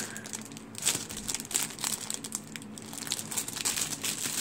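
Clear plastic packaging bag crinkling and crackling irregularly as hands handle it around a squishy toy.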